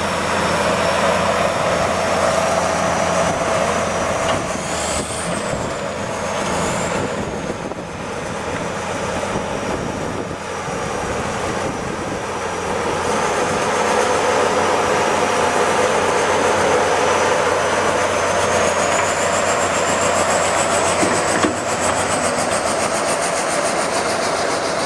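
A 1977 Case Drott 50 excavator's engine running steadily under load, with a faint high whine that rises and falls in pitch.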